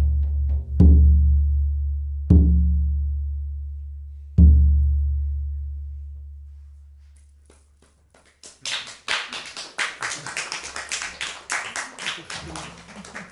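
Large hand-held frame drums struck with a beater: three deep booms about a second and a half to two seconds apart, each ringing down slowly, the last the loudest. Near the middle the ringing dies away, and a few seconds of clapping follow.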